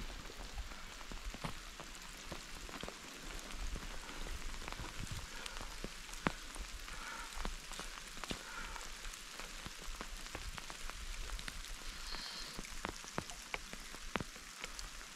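Steady rain falling: an even hiss with many scattered sharp ticks of drops.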